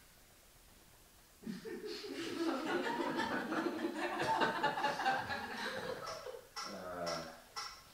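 Audience laughter, starting suddenly about a second and a half in and carrying on.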